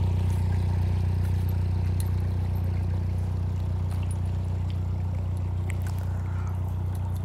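Narrowboat engine running with a steady low drone as the boat moves away along the canal, slowly fading.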